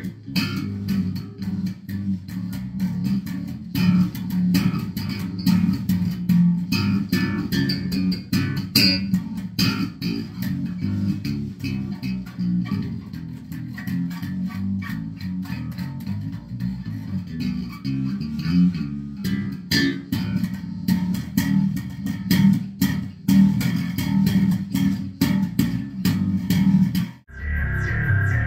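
Electric bass guitar played solo: a continuous run of plucked notes with sharp attacks, in a steady groove. It breaks off abruptly about a second before the end.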